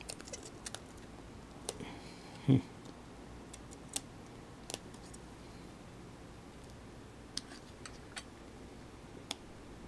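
Scattered small clicks and ticks of fingers working at the battery connector and its cover inside an opened iPhone 4, with a soft thump about two and a half seconds in.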